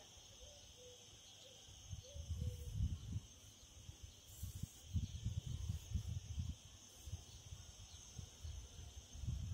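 Insects trilling steadily in a high, unbroken drone, with irregular low rumbling on the microphone that comes and goes over it.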